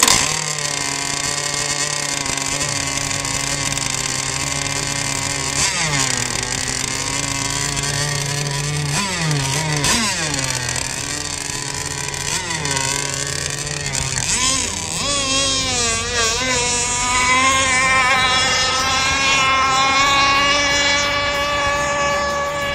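Gas engine of a T-43 radio-controlled racing catamaran running: idling with a few quick blips of the throttle, then from about two-thirds in running at a higher, louder pitch that wavers as the boat speeds across the water.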